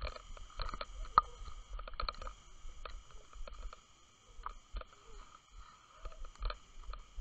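Underwater audio from a camera rig on the seabed. Irregular clicks and knocks, the sharpest about a second in, sound over a low rumble of moving water and a steady faint whine as the rig shifts and tilts on the bottom.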